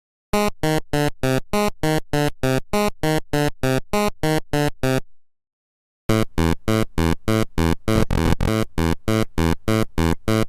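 Electronic music: a synthesized pitched note repeated in an even pulse, about three a second, breaking off for about a second midway and then starting again.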